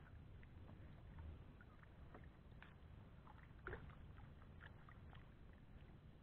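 Faint water sloshing and small knocks as a small wooden boat is paddled, with one slightly louder knock a little past the middle.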